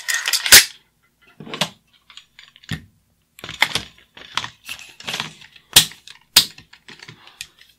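Metal parts of an AR-type rifle clicking and clacking as it is reassembled, with a string of about seven or eight separate sharp clacks. The sharpest comes about half a second in.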